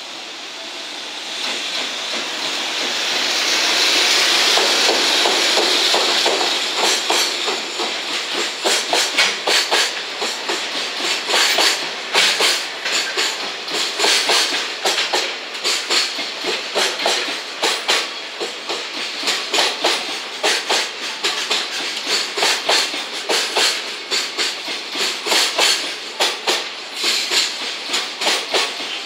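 JR Freight EF210 electric locomotive and its Koki container wagons running past. The sound rises to a loud rush about four seconds in as the locomotive goes by, then the wagons' wheels clack over the rail joints in quick, irregular clusters over a steady rolling noise.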